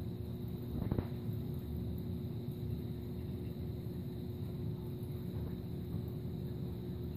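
Steady low hum of running aquarium equipment, pumps and circulating water, with a brief knock about a second in.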